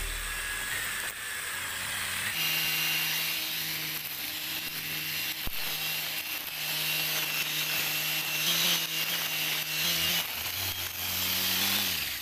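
Electric angle grinder converted into a string trimmer running at speed, its nylon line cutting through grass and weeds: a steady high motor whine over a hiss from the line. It firms up and gets louder about two seconds in.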